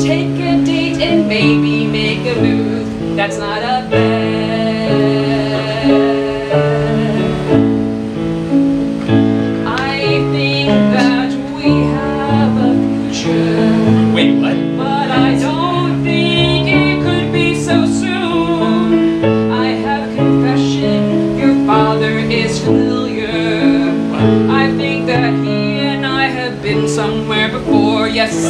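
Live electric keyboard playing sustained chords that change every second or so, with a singing voice over it.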